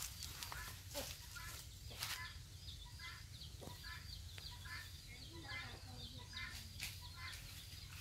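Faint bird calls: short chirps repeating about twice a second, with a rapid string of high notes through the middle, and a few sharp clicks.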